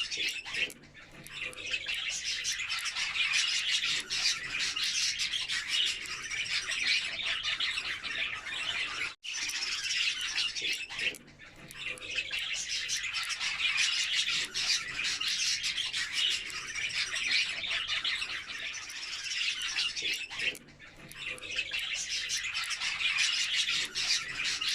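A flock of budgerigars chattering and chirping continuously, with a few brief lulls.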